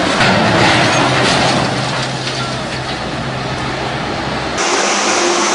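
A vehicle engine running with a steady low hum under loud, rough noise; the sound changes abruptly about four and a half seconds in, the low hum dropping away.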